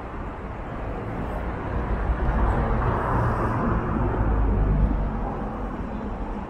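Road traffic on a city street: a small van drives past close by, its engine and tyre noise swelling through the middle and easing off near the end.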